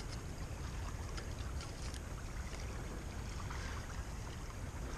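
Wind rumbling on the microphone over the rushing hiss of a small creek, with a few light crackles of dry stems and leaves as someone steps through brush.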